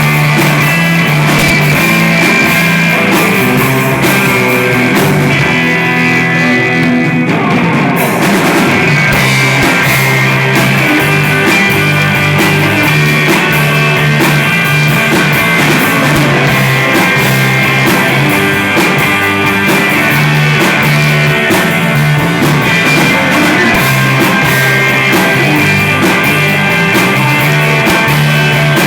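Rock music with electric guitar, bass and drum kit playing. The cymbals and drums drop back for a couple of seconds about five seconds in, then come back in full.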